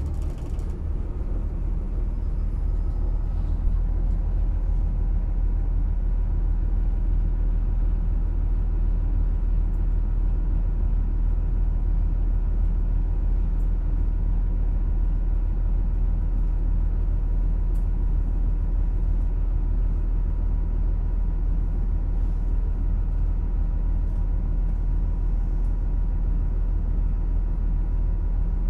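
Yutong ZK6128HG low-floor city bus heard from inside the cabin while driving: a steady low engine and road rumble with a thin, faint steady whine above it.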